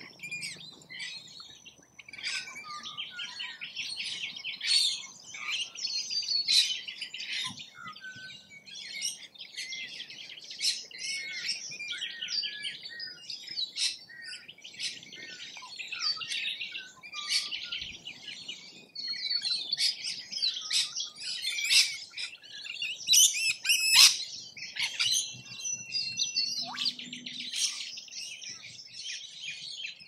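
A flock of parrots chattering and squawking, with many short high-pitched calls overlapping without a break.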